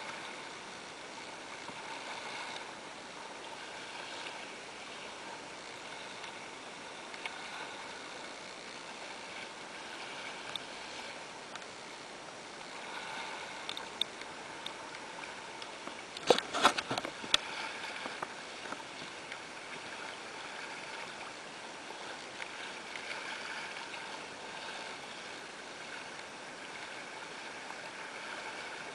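Water rushing and splashing along the hull of a small sailing dinghy under way through choppy sea. A little over halfway through comes a brief burst of sharp knocks.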